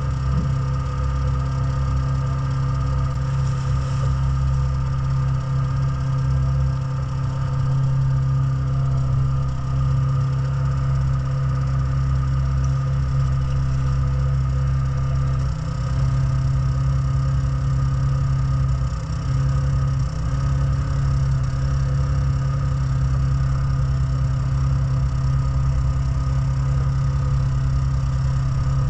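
An engine idling steadily, with a slight shift in its tone about halfway through.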